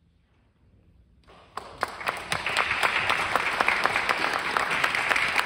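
A moment of near silence, then audience applause breaks out about a second and a half in and quickly builds to steady clapping.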